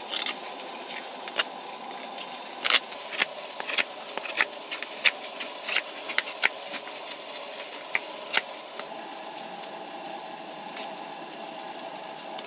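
Knife whittling a wooden spoon: short, irregular scraping strokes of the blade shaving wood, many in the first eight seconds and fewer after, over a steady background hiss.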